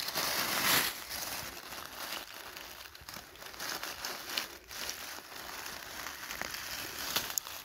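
Dry fallen beech leaves crackling and rustling as a hand pushes through them and grips a mushroom. The sound is loudest in the first second, then goes on as a softer rustle with scattered sharp crackles.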